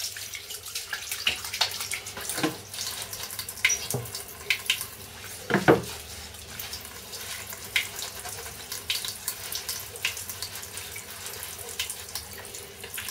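Tap water running into a sink, with irregular splashes and small knocks from washing under the stream.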